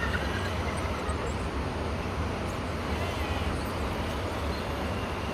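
RC rock crawler's small electric motor driving the truck up a rock line, a faint whine over a steady low rumble of outdoor noise.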